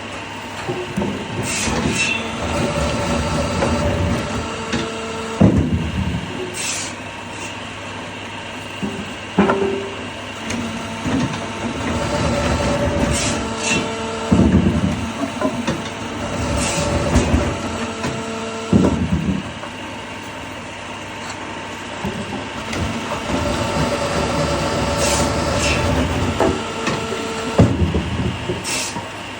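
Woodworking machine running with a steady hum. The sound rises and falls in a repeating cycle every few seconds, with sharp knocks of wood between the louder stretches.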